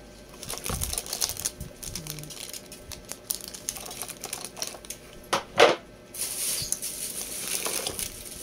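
Hands rummaging through a cardboard box of camera parts: clicks and rustles of plastic pieces being moved, with one louder clatter about five and a half seconds in, then plastic wrapping crinkling near the end.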